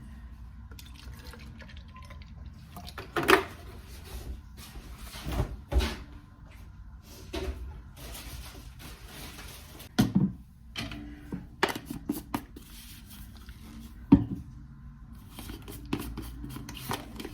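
Milk being poured into several cups, with a few sharp knocks of cups or a jug set down on a counter.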